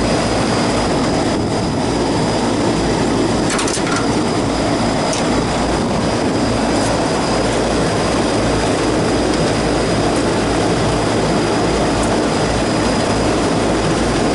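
Steady mechanical roar and hum of rooftop air-conditioning equipment running, with a few light clicks about four seconds in.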